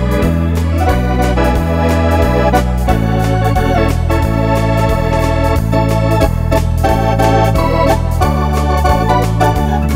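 Wersi two-manual electronic organ playing a foxtrot medley: chords and melody over bass notes that change about twice a second, with a steady drum beat.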